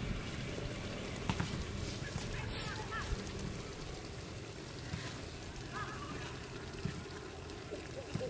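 Large pot of snake soup simmering, its liquid bubbling and trickling, with a couple of short chirps in the background about three and six seconds in.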